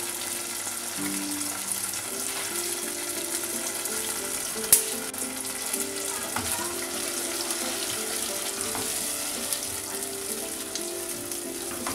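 Spice paste of ground red chili, coriander, garlic and turmeric sizzling steadily in hot oil in a pan as it is stirred in, with one sharp tap a little before five seconds in.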